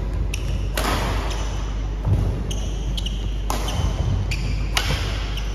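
Badminton rackets hitting a shuttlecock back and forth in a doubles rally: a string of sharp hits, roughly one a second.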